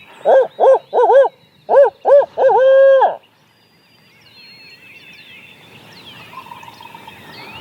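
A loud barred-owl hoot series in the 'who cooks for you, who cooks for you-all' rhythm: five short hoots, then a longer drawn-out final hoot. Faint songbirds chirp afterwards.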